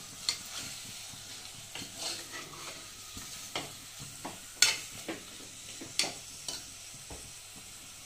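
Marinated chicken pieces sizzling steadily as they fry in oil in a pressure cooker, while a slotted steel spoon stirs them, with irregular clinks and scrapes of the spoon against the pot, the loudest about four and a half and six seconds in.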